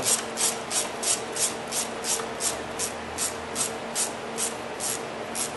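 Hand ratchet wrench swung back and forth to undo the bolt holding a hose down in a 2009 Honda Civic's engine bay. Each back-stroke gives a short rasp of pawl clicks, repeating evenly at close to three a second.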